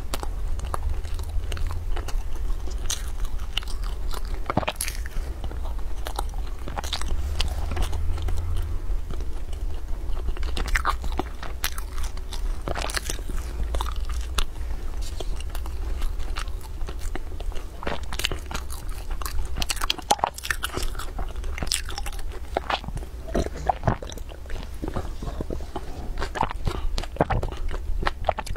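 Close-miked biting and chewing of crispy fried food, with many short crunches scattered throughout, over a low steady hum.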